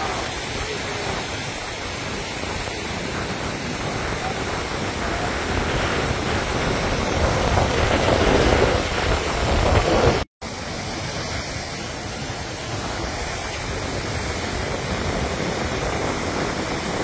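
Floodwater of the swollen Chenab river rushing past as a steady, even noise, cut by a brief dropout about ten seconds in.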